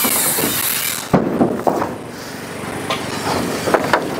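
Timber roof truss being pivoted and slid across a stack of trusses: a scraping rush of wood on wood, then a sharp wooden knock about a second in, followed by a string of lighter knocks and clicks.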